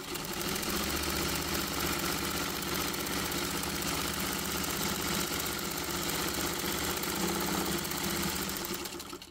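Vintage sewing machine starting up and stitching a seam through folded cotton flannel at a steady, fast, even pace, then stopping just before the end.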